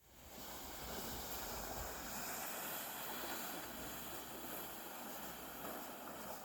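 Steady wind rushing over the microphone, with a low rumble underneath, starting abruptly.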